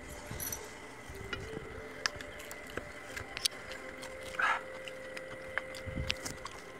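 Hand-eating sounds: fingers squishing and mixing soft rice with mashed potato and taro on steel plates, with scattered small clicks. A short mouth noise comes about four and a half seconds in as a handful is eaten, over a faint steady background tone.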